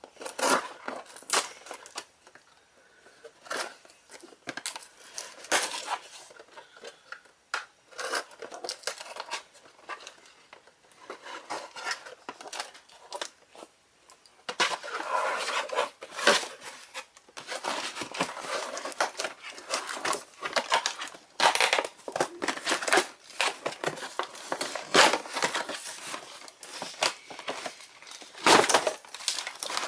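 Plastic toy packaging crinkling and clicking as the plastic ties holding the toy in its box are worked loose. It comes in irregular bursts of rustles and clicks that get busier and louder about halfway through.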